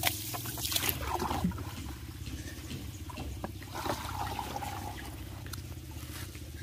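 Water from a garden hose running and splashing, first into a metal basin as fish are rinsed in it by hand, then into a water-filled plastic bucket, with small clicks and splashes from the handling. A steady low hum runs underneath.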